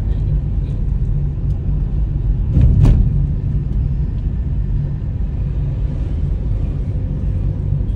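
Steady low rumble of travelling in a moving road vehicle, with a brief louder rush just under three seconds in.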